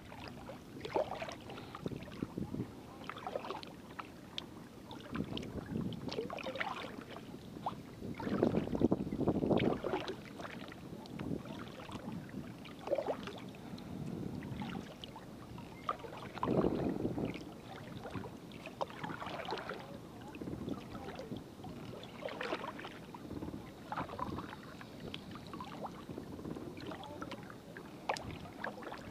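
Double-bladed kayak paddle stroking on alternating sides, its blades dipping and splashing in calm water, with water dripping off the raised blade, in an uneven rhythm of strokes every second or two.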